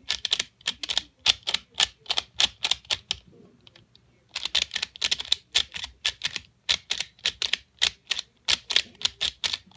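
Plastic pyraminx puzzle being twisted quickly, its layers clicking about five times a second, with a short pause about three and a half seconds in.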